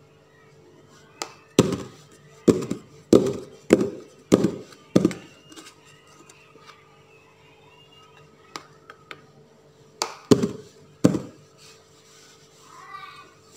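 Aluminium tube cake pan filled with sponge batter knocked down hard on a surface: six thumps about twice a second, then three more a few seconds later, each with a short metallic ring. Knocking the pan like this drives air bubbles out of the batter before baking.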